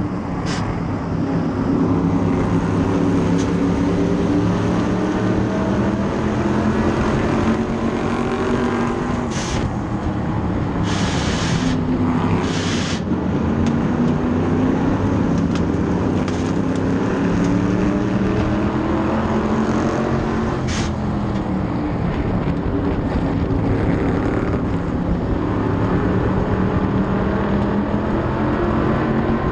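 Onboard sound of an SK Lite modified race car's engine running at racing speed, its pitch rising and falling over and over through the laps. There are a few short hissing bursts about ten to thirteen seconds in.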